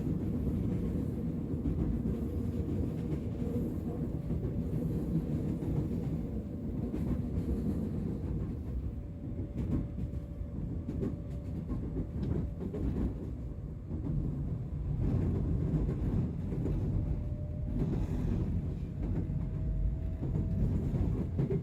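Subway train running: a steady low rumble, with a faint motor whine that rises slightly in pitch near the end.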